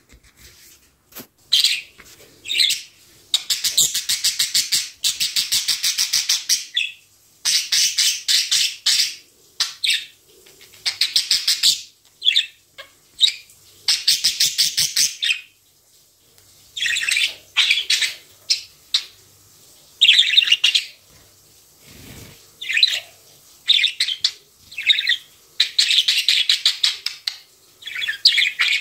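Budgerigar warbling and chattering: bursts of rapid, buzzy rattling song lasting one to three seconds, with short chirps in between.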